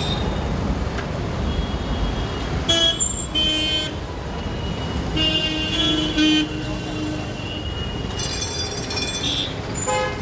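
Busy city road traffic: a steady rumble of engines and tyres, with vehicle horns honking several times over it, one longer honk around the middle.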